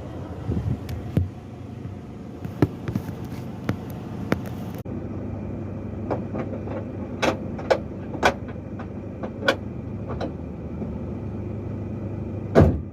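Sharp clicks and knocks at irregular intervals over a steady low hum, with a louder thump near the end. There is no cranking whir: the Nissan Navara does not crank.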